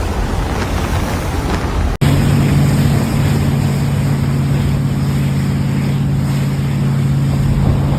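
Loud rushing, wind-like noise. After an abrupt cut about two seconds in, a steady low engine-like drone runs under the rushing noise.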